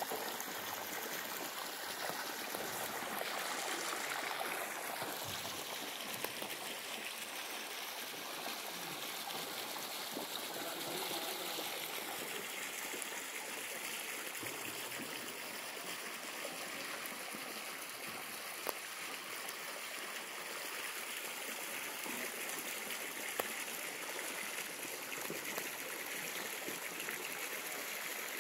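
Water pouring from a jet into an ornamental pond, a steady splashing rush of flowing water.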